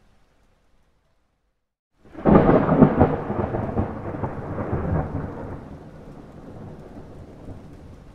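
A thunderclap: after about two seconds of near silence, a sudden loud crack with crackling breaks out, then rolls off into a long rumble that fades over the next few seconds.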